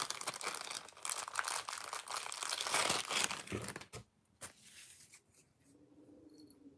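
Clear plastic packaging crinkling and tearing as a bag is handled and opened, a dense crackle that stops about four seconds in.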